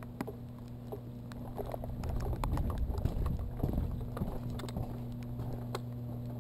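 Footsteps on wet ground and handling knocks on a moving camera: irregular light taps and clicks, busier and louder about two seconds in, over a steady low hum.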